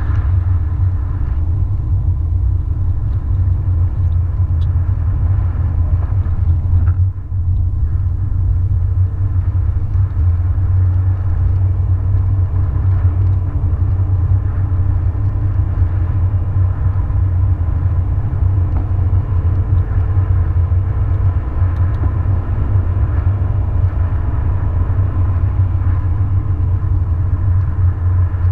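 Steady low rumble of road and engine noise inside a car's cabin, driving at highway speed.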